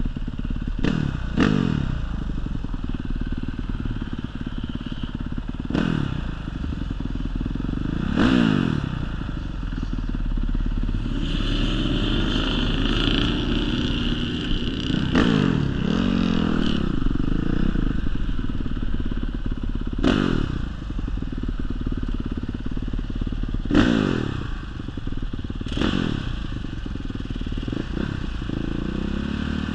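Honda CRF450 dirt bike's single-cylinder four-stroke engine under way on sand, running steadily with about eight short surges in pitch as the throttle is opened and the gears are shifted.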